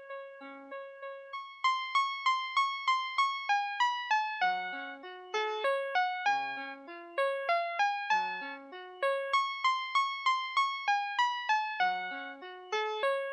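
VTech Schlummerschnuffi toy's built-in melody chip playing a classical tune in simple electronic piano-like tones, about three notes a second, over a lower accompanying line.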